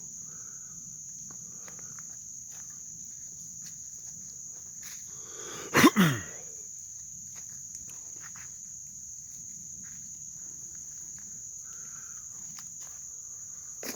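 Steady chorus of crickets or similar insects, a continuous high trill, with faint footsteps in wet woods. About six seconds in comes one short, loud sound that slides down in pitch.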